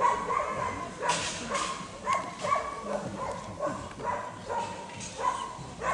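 A dog barking repeatedly in short, sharp yaps, about two or three a second.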